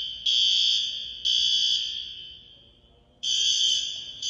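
Fire alarm sounding a high, screechy electronic tone in the three-beep evacuation pattern. Each beep lasts about half a second, each group is followed by a pause of about a second and a half, and an echo trails off after each group before the next group starts.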